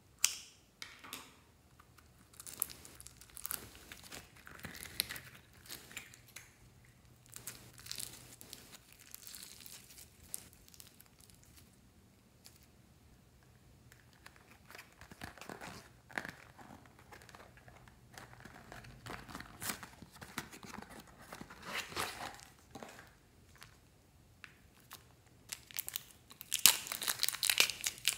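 Close-up crinkling and tearing of packaging handled by hand: a cardboard box and plastic wrapping rustle and tear in irregular bursts, and a plastic bag of slime crinkles loudest near the end.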